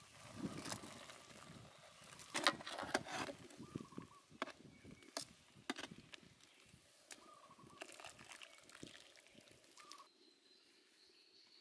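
A metal ladle knocking and scraping against a steel wok and a mesh strainer while noodles boil in water, in irregular clicks and clanks. A bird chirps briefly a few times in the background, and the clatter stops near the end.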